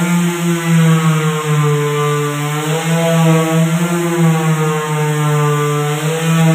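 Corded electric palm sander with a square pad running against a wooden door frame, sanding the wood: a steady motor hum with its pitch wavering slightly.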